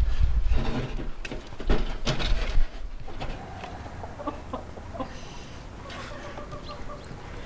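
Firewood knocking and clattering as pieces are pushed into a small sheet-metal stove for a few seconds. Then chickens cluck nearby in short, repeated pitched calls.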